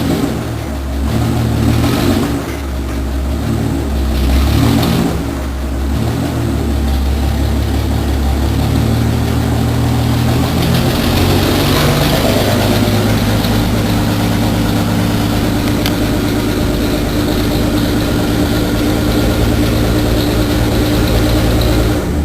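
Rural's 4.1 engine running with a rumble. It is blipped a few times in the first five seconds, then rises to a higher speed a little past the middle and is held there steadily.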